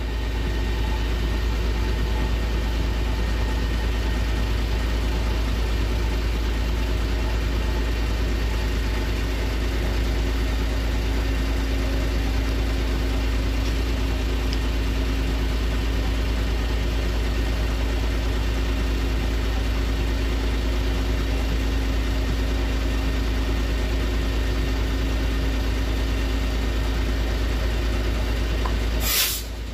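Engine idling steadily: a constant low hum with a steady drone that doesn't change. A short, loud burst of noise cuts in near the end.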